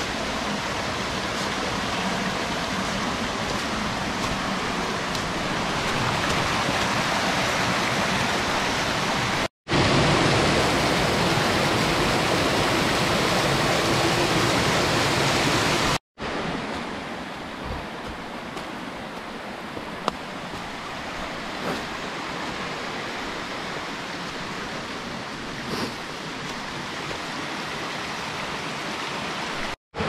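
Rushing water of a small rocky mountain stream, a steady hiss. It cuts out for an instant twice and changes loudness after each, loudest in the middle and quieter in the last half, where a few faint ticks sound.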